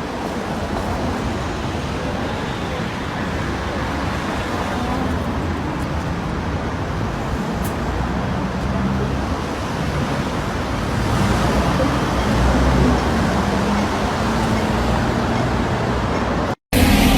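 Steady street noise, mostly road traffic rumble, growing a little louder about eleven seconds in.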